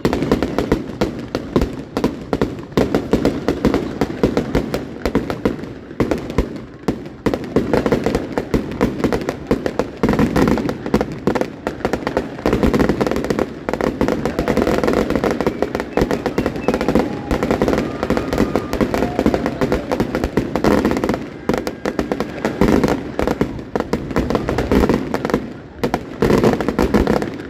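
New year fireworks display: a dense, almost unbroken barrage of rapid bangs and crackling.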